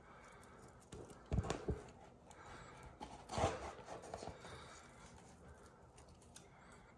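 Faint handling noises from vinyl wallpaper being pressed and cut with a snap-off utility knife: a few soft knocks about a second and a half in, then a short scraping rustle as the paper is cut.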